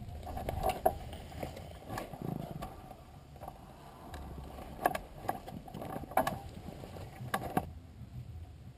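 Scattered clicks and knocks, a handful of them sharp, as the parked mini trike and its gear are handled before flight; its engine is not running. A low rumble sits under them.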